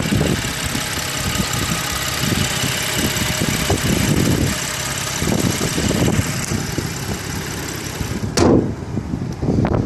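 BMW M235i's 3.0-litre turbocharged inline-six idling steadily under the open hood, with uneven rumble from wind on the microphone. Near the end a single loud thud as the hood is shut, after which the engine sounds duller.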